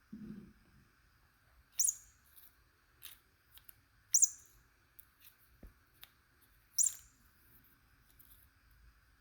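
Three short, high, bird-like chirps about two and a half seconds apart, with light clicks and taps between them.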